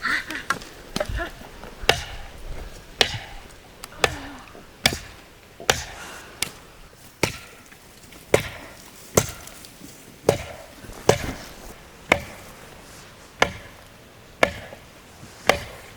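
Steady chopping: a blade striking into wood about once a second, with no pause.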